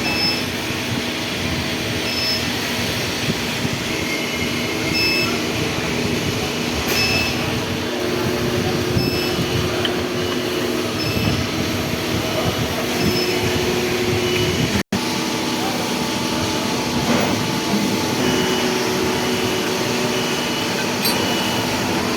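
CNC lathe running steadily while cutting a thread on a brass nut, a continuous machine noise with a steady hum.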